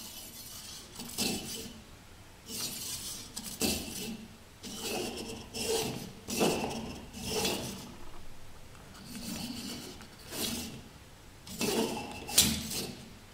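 Neodymium ring magnets sliding and springing on a metal rod, with metallic clinking and scraping about once a second. Near the end a sharp click comes as the magnets are pressed down together.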